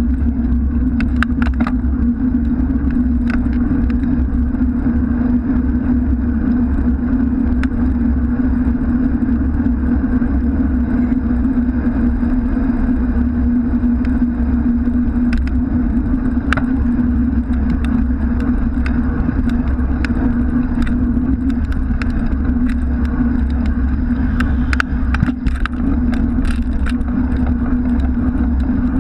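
Steady rumble of wind and road noise picked up by a bicycle handlebar-mounted camera while riding, with a constant low hum and scattered sharp clicks, over road traffic alongside.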